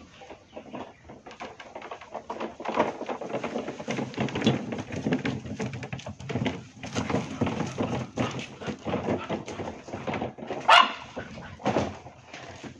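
Dogs barking and whining over an irregular clatter, with two sharp yelps near the end, the first the loudest.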